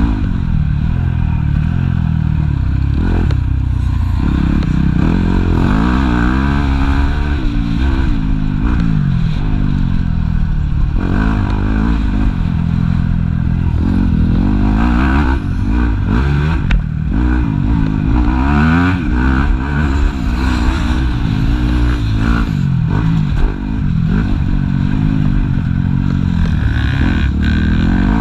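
Yamaha YZ250F motocross bike's four-stroke single-cylinder engine, heard from on board, revving hard and easing off over and over as it is ridden round a dirt track: the pitch climbs through each gear and drops back at each shift or corner.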